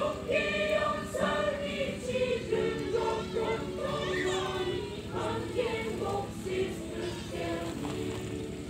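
Mixed choir of men and women singing together, the voices coming in strongly at the start and tailing off near the end.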